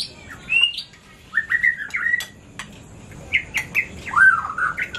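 A bird chirping and calling in quick runs of short notes that glide up and down, with light clinks of spoons on plates.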